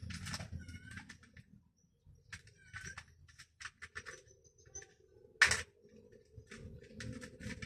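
Scattered light clicks and taps of hand tools and small parts being handled, with one louder sharp click about five and a half seconds in, over a faint low rumble.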